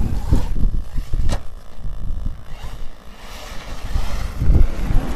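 Wind buffeting the microphone in gusts, easing off for a couple of seconds in the middle, with a single sharp click about a second in.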